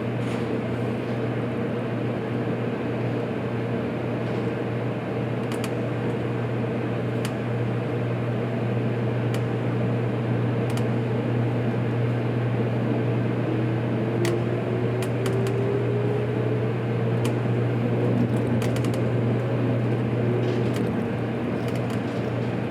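Running noise of a JR Kyushu 783 series electric train: a steady low hum with a tone that rises in pitch around the middle as the train gathers speed, and scattered sharp clicks.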